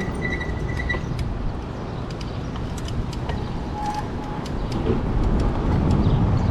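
Wind rushing over the microphone and road noise from an e-bike riding along, steady throughout, with a short high whine that fades out in the first second and light clicks and rattles.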